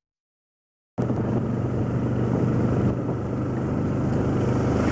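About a second of silence, then an engine running steadily with a low, even hum.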